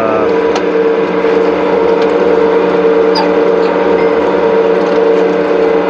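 Electric clay brick extruder with mixer and belt conveyor running under load as it pushes out the clay column: a loud, even machine hum with several steady tones and a few faint clicks.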